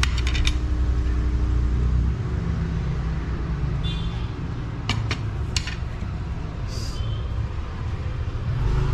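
Motor vehicle engine rumbling close by, loudest in the first two seconds and then settling to a lower steady traffic rumble, with a few short sharp clicks about five seconds in.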